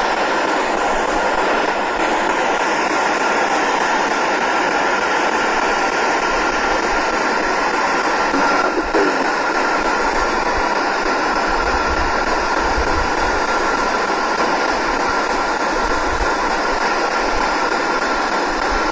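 A steady, loud hiss with a constant high-pitched tone running through it, unchanging throughout.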